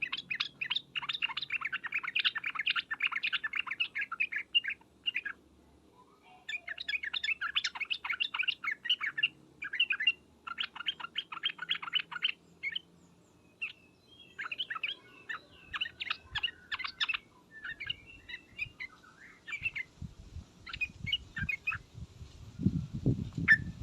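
Yellow-vented bulbuls (trucukan) giving their chattering "ngriwek" call: rapid scratchy runs of short notes in phrases a few seconds long, with brief pauses between them. Low thumps come in over the last few seconds.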